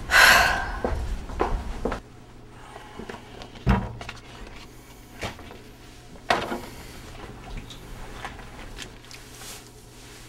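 Handling sounds: a short loud rush of noise at the very start, then a few separate sharp knocks and clunks over a low steady hum.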